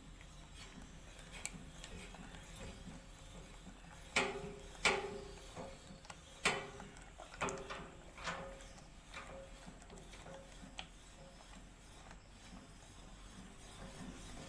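A series of irregular metallic clinks and knocks, some with a short ring, clustered in the middle few seconds.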